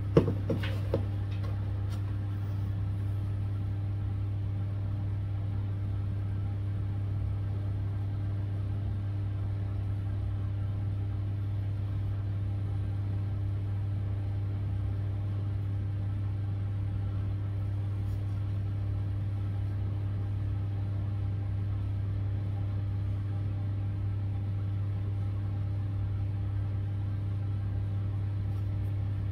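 Steady low machine hum, with a few sharp knocks in the first second.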